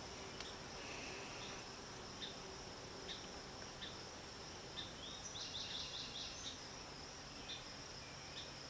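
Quiet woodland ambience: a steady high-pitched insect drone with scattered bird chirps, and a quick run of short rising chirps a little past the middle.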